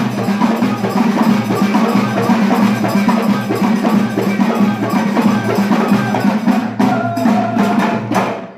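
Abidat Rma folk percussion: several hand-held frame drums, some with jingles, beaten in a fast, steady rhythm together with hand clapping. The sound drops away suddenly at the very end.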